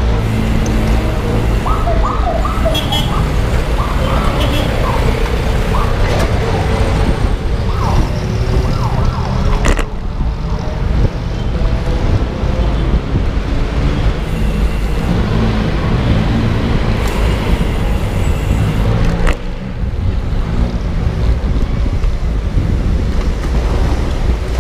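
City street traffic noise, a loud steady rumble, with short high-pitched calls or whoops scattered through the first ten seconds or so.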